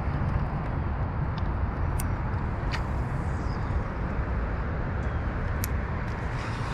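Steady wind rumble buffeting the microphone, with a few faint clicks scattered through it.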